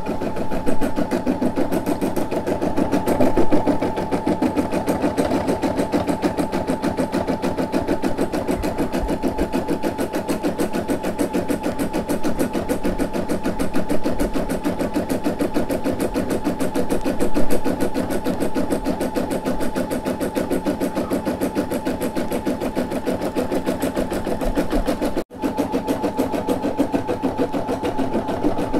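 Brother SE600 embroidery machine stitching out a design: a fast, even needle clatter of many stitches a second that runs steadily.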